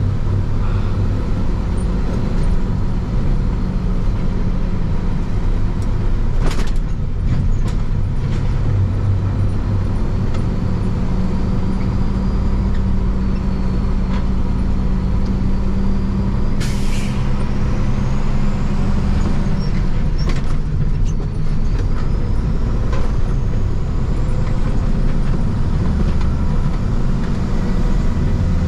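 International truck running down the road with a trailer in tow: a steady low engine drone with road noise, broken by a few sharp knocks.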